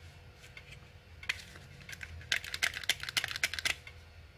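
Plastic clicking and rattling of a cheap toy pistol being handled: a couple of single clicks, then a quick run of many clicks lasting about a second and a half.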